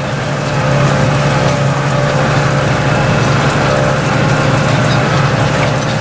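Case IH Puma 260 tractor's six-cylinder diesel engine running steadily under ploughing load, heard from inside the cab. It swells slightly about a second in, then holds an even drone.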